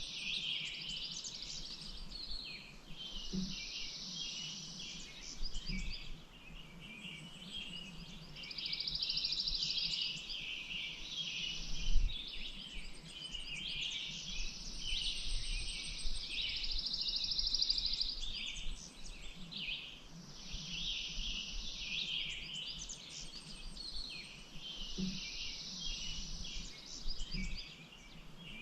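Several birds chirping and singing without pause, with buzzy trills about two seconds long recurring every few seconds. A single brief thump about twelve seconds in.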